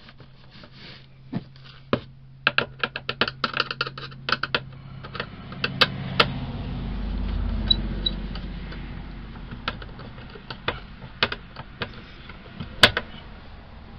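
Clicking and tapping of a hand tool and wires being worked at the terminals of an RV power converter's AC breaker panel as a wire is fastened. A quick run of clicks comes a few seconds in, then scattered single clicks, with a low rumble swelling in the middle.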